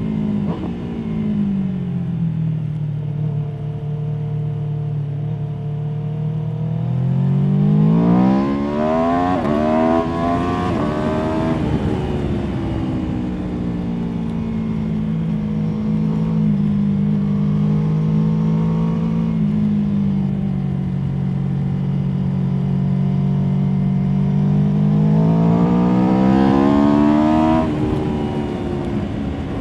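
Aprilia Tuono V4 motorcycle's V4 engine heard from on board under riding. The revs fall and hold low, then climb hard through a couple of gear changes, hold steady, and climb again before dropping off sharply near the end.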